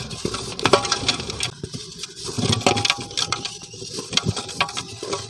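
Hands crumbling and rubbing grey clay in a metal bowl: an irregular gritty crackle with many sharp clicks.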